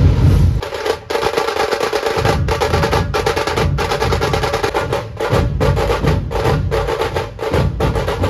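Dhol-tasha drum troupe playing: rapid, dense tasha strokes run throughout over heavy dhol beats. The dhol beats drop out for a moment about a second in, then come back.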